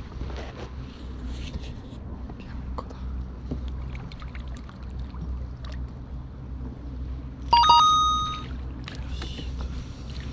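A hooked herabuna (crucian carp) splashing at the surface as it is played and netted, small splashes and clicks over a steady low rumble. About two-thirds of the way through, a bright bell-like chime rings out and fades over about a second.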